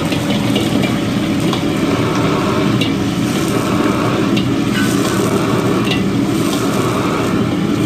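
Fish sizzling in a carbon-steel wok as a steel ladle stirs and pours liquid in, over the steady rushing noise of a commercial gas wok burner. A few light clinks of the ladle against the wok stand out.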